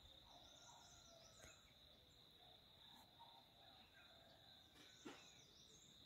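Faint hillside ambience: a steady high insect drone with scattered short bird chirps, and a brief tap about five seconds in.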